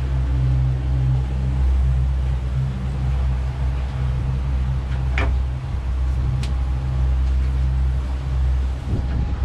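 A boat's motors running steadily under way, a deep, even drone with the hiss of wind and water over it.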